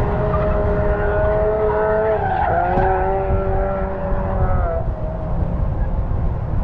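A car's tyres squealing as it slides, for about the first five seconds, with the pitch dipping briefly about halfway. Strong wind rumbles on the microphone throughout.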